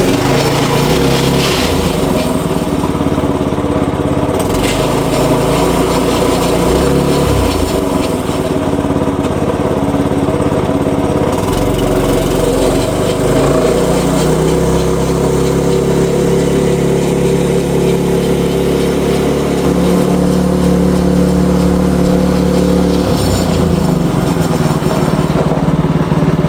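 Predator 212 single-cylinder four-stroke small engine in a golf cart, running steadily and changing speed several times as the throttle goes up and down.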